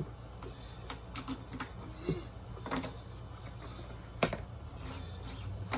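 Irregular light clicks and knocks of bicycle parts being handled as a wheel is refitted, with a sharper knock about four seconds in.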